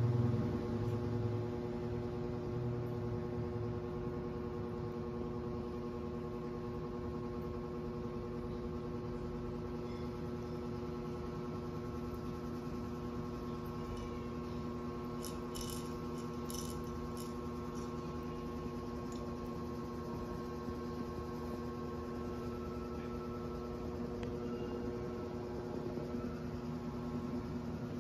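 Small electric motor of a feather-spinning cat toy running with a steady hum. A few light clicks come about halfway through.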